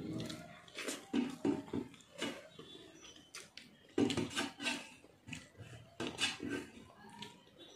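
Fingers mixing and scraping rice against a brass plate, with irregular small clicks of skin and food on metal, and chewing and lip-smacking while eating by hand.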